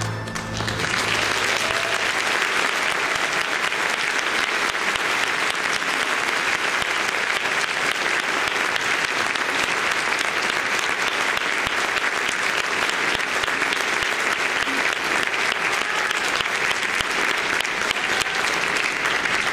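The orchestra's last held chord dies away in the first second, and audience applause rises and carries on steadily.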